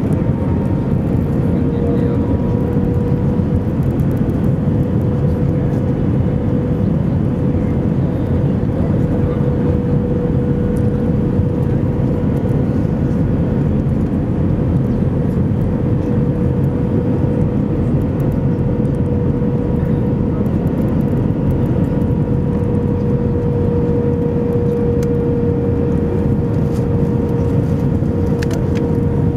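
Airbus A319 cabin noise in flight: the engines and rushing air make a constant low roar, with a steady mid-pitched tone and a fainter higher one running through it.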